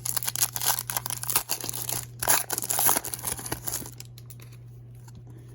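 Wrapper of a trading-card pack being torn open and crinkled by hand, a dense crackling rustle for about four seconds that then dies away.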